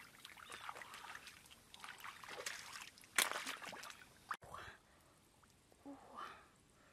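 Hands splashing and swishing through shallow muddy water while feeling for and picking up snails, irregular sloshing with one sharper splash about three seconds in.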